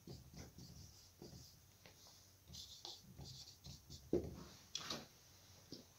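Marker pen writing on a whiteboard: faint short strokes of the felt tip across the board, with a few stronger strokes about four and five seconds in.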